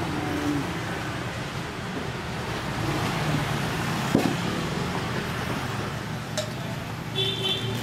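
Steady background noise, with one sharp knock about four seconds in.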